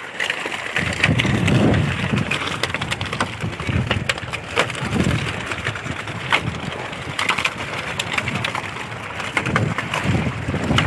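Irregular sharp knocks and slaps, with gusts of wind rumbling on the microphone.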